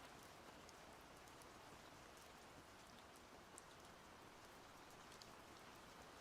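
Faint, steady splashing of running water, with small scattered droplet ticks.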